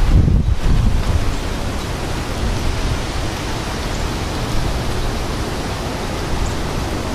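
Strong thunderstorm gust-front wind rushing and buffeting the microphone. A heavy low rumble of gusts lasts about the first second and a half, then eases to a steady hiss.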